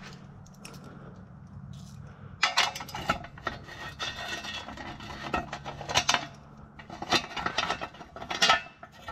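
Loose metal parts clinking and rattling as a bracket, its bolts and hand tools are handled: sharp clinks with a brief metallic ring, coming in clusters from about two and a half seconds in. A low steady hum sits underneath.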